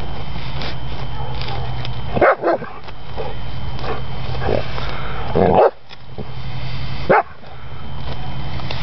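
Yellow Labrador retriever giving a few short, loud barks as it digs after a mole: a quick pair about two seconds in, then single barks around five and a half and seven seconds. A steady low hum runs underneath.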